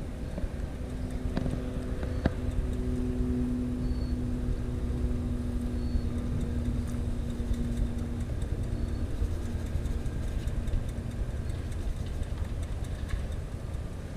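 Steady low rumble of road traffic, with a motor vehicle's engine drone holding one pitch for about ten seconds before it fades, and a few faint high chirps.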